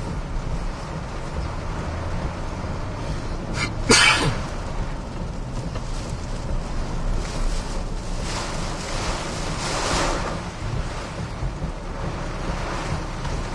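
Hurricane wind and rain buffeting a vehicle, heard from inside the cabin over a steady low engine rumble. A sudden sharp burst of noise comes about four seconds in, and the wind swells in gusts between about eight and ten seconds in.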